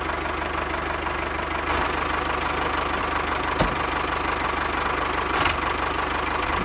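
Miniature DIY model tractor running steadily as it drives, an even engine-like sound with a fine fast rhythm and a steady low hum, with one sharp click about halfway through.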